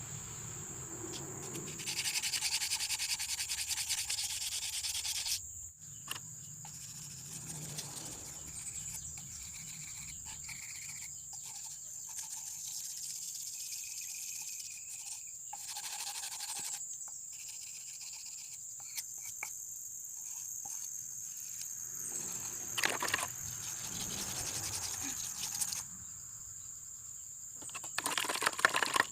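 Rough rubbing and scraping strokes on the steel blade, loudest for a few seconds near the start and intermittent after that, over a steady high-pitched whine.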